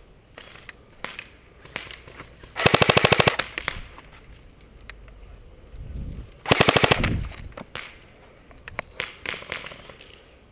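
Airsoft electric rifle firing two short full-auto bursts of rapid, evenly spaced shots, about two and a half seconds in and again about six and a half seconds in, each under a second long.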